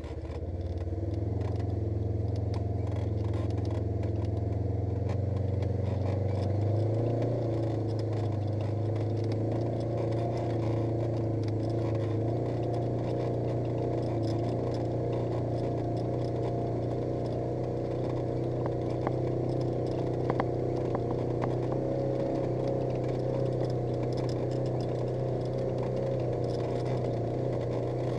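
Polaris RZR 900 S side-by-side's twin-cylinder engine running steadily on the move. Its pitch steps up about a quarter of the way in and then holds.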